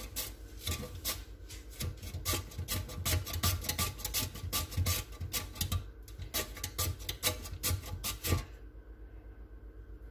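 Raw potato pushed over a metal box grater in quick repeated rasping strokes, cutting thin slices. The strokes stop about eight seconds in.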